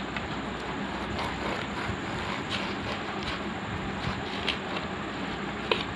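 Steady rushing background hiss, with about five faint clicks spread through it as a steel knife cuts through a rolled chapathi and its blade touches the plastic-covered table.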